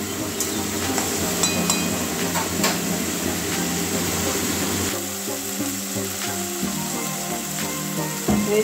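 Tamarind and tomato gravy sizzling in a metal kadai while a metal spatula stirs it, with a few light taps of the spatula against the pan in the first few seconds. Background music plays throughout.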